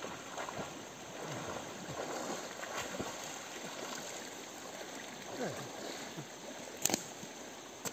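River water running over a shallow rocky bed, with the splashing of people wading and swimming through it. A single sharp click comes near the end.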